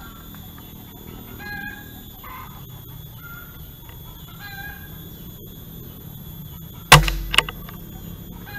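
A single air rifle shot near the end: one sharp crack, then a second, weaker click about half a second later.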